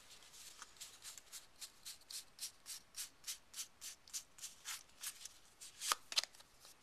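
World of Warcraft trading cards slid one over another by hand as a freshly opened booster pack is thumbed through, a quick, even rub of card on card at about four strokes a second. Two louder swipes come near the end.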